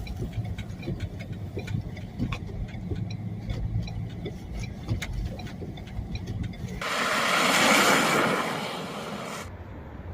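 A vehicle's engine running with a low rumble and scattered clicks and knocks. About seven seconds in, a loud rushing hiss swells up, lasts about two and a half seconds and cuts off suddenly.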